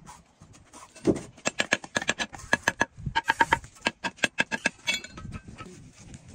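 Laying concrete blocks: a low thud about a second in as a block is set down, then a rapid run of ringing metallic taps, several a second, for about four seconds, as a metal tool taps the block into place.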